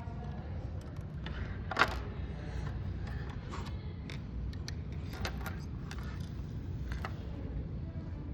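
Light clicks and taps of a desktop CPU being handled and seated into a motherboard socket, with one louder knock about two seconds in, over a low steady hum.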